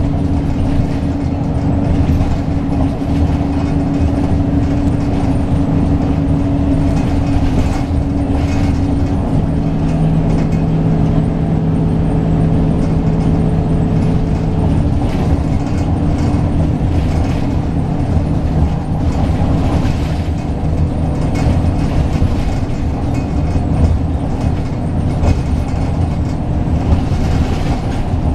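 Interior sound of a transit bus on the move: its Cummins ISB straight-six turbodiesel runs steadily at cruising speed under constant road and tyre noise, with irregular rattles and knocks from the body. The engine's hum steps down to a lower note about ten seconds in.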